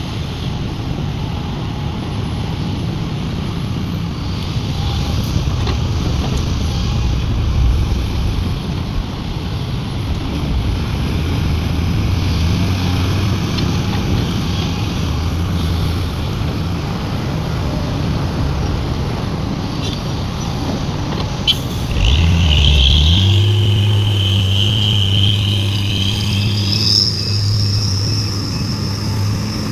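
Heavy diesel engines of an excavator and dump truck running with a steady low rumble. About 22 seconds in, the engine note steps up into a steadier, higher drone, with a high-pitched whine that rises further near the end.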